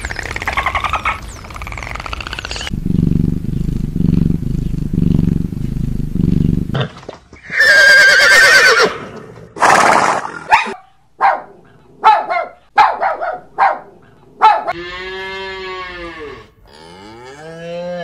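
A run of animal calls: dolphin whistles first, then a low pulsing call, then a loud wavering horse whinny and a string of short calls. Near the end come cows mooing in long calls that sweep up and down in pitch.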